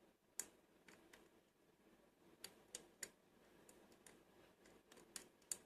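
Faint, irregularly spaced small metallic clicks and ticks of a hook pick probing the pin tumblers of a Lockwood V7 cabinet lock held under a tension wrench. The picker suspects he has overset a pin.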